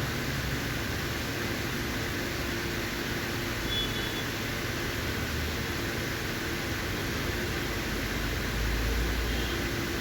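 Steady background hiss with a low hum, like room air-conditioning or fan noise; a low rumble swells briefly near the end.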